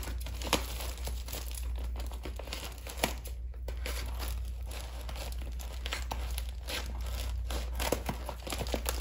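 Bubble wrap and foam packing wrap crinkling and tearing as it is pulled and cut off a wrapped crystal, with many irregular sharp crackles.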